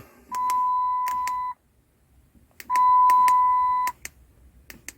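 An electronic beeper sounding two long, steady, high-pitched beeps, each a little over a second long and about two and a half seconds apart, with faint clicks running through them.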